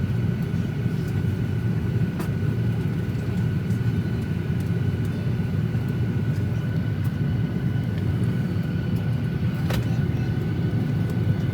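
Steady cabin rumble of a Boeing 737-800 on the ground during boarding, with a faint steady whine over it. Two faint clicks, about two seconds in and near the end.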